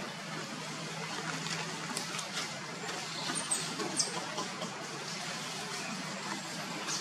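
Steady outdoor background hiss with scattered light ticks and rustles, and a few short, very high squeaks a little past halfway.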